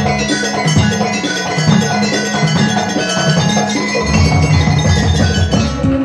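Banyuwangi gamelan ensemble playing: metallophones struck with mallets in a fast, dense pattern over two-headed kendang hand drums. Deeper low tones come in about four seconds in.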